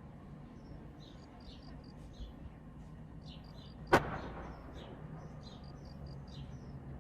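A firework shell bursting with one sharp bang about four seconds in, its echo trailing off, over a background of faint, high, rapid chirping.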